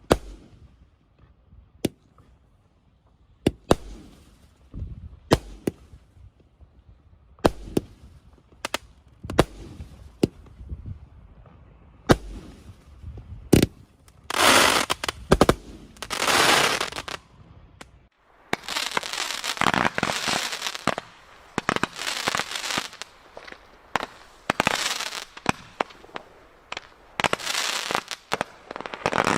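Consumer firework batteries firing. For the first two-thirds there are separate sharp shots and bangs. After a change at about two-thirds of the way, there are long spells of dense crackling.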